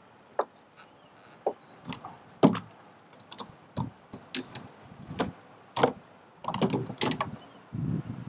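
Scattered sharp clicks and knocks, a dozen or so at uneven intervals, from an angler handling his rod, reel and kayak while reeling in a hooked fish.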